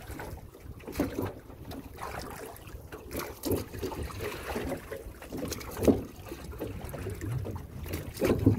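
A pair of oars rowing a small fishing boat, with a short creaking knock from the oars in their rowlocks at each stroke, about every two and a half seconds. Water trickles off the blades, and wind is on the microphone.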